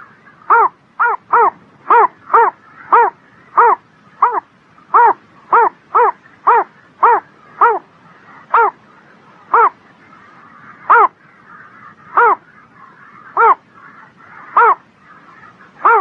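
An animal's short pitched call, repeated about twenty times: about two calls a second at first, slowing to roughly one every second and a bit in the second half.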